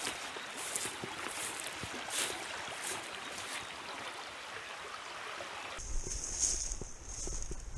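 Steady rush of a river with rustling and footsteps as someone walks through long grass on the bank. About six seconds in the sound changes abruptly to a low rumble with a thin steady high hiss.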